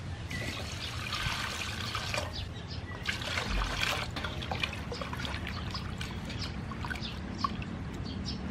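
Water poured from a bowl into a large aluminium basin of raw octopus, in two pours within the first four seconds, then hands sloshing and rubbing the octopus in the water with small splashes.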